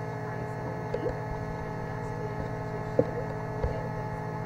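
Steady electrical mains hum in the recording, with a few light clicks, the sharpest about three seconds in.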